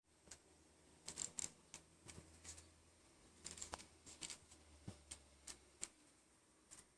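Faint scattered clicks and taps of a plastic-and-paper sound picture-book toy being handled, some in quick pairs, over near silence.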